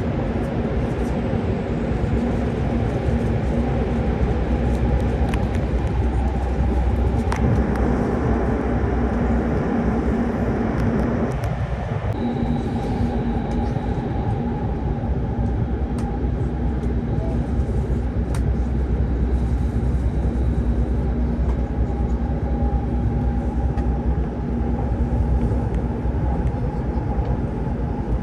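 Joetsu Shinkansen E7-series train running, heard inside the passenger car: a steady low rumble of wheels on rail with an even drive hum and a few faint clicks.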